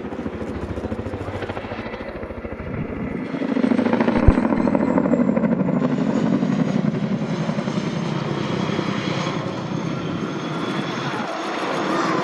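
Boeing CH-47 Chinook tandem-rotor helicopter flying, its rotors giving a rapid thudding blade beat over the turbine noise, louder from about three seconds in. A single short thump comes about four seconds in.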